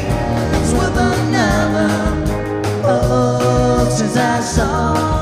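Live band playing a sixties-style pop song: drums hitting on a steady beat under bass and guitar, with voices singing long held notes.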